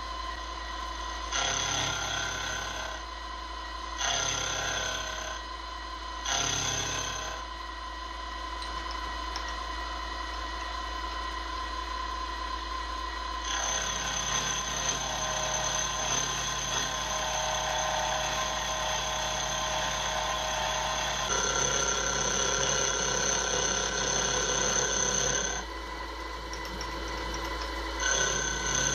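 Milling machine spindle driving a 12 mm roughing end mill through cast iron: a steady machining whine with several high ringing tones. In the first several seconds it comes and goes in short stretches of about a second and a half, then runs on steadily, its tones shifting a few times.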